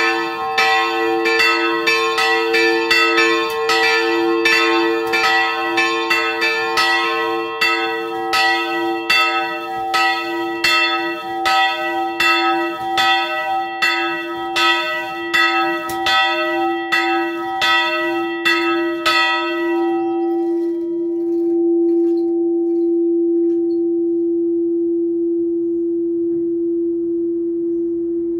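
Two old bronze church bells, cast by Nuspicher in 1701 and 1714, swinging and ringing together with their clappers striking in quick succession. The strikes stop about twenty seconds in, and the lower bell's hum rings on, fading slowly.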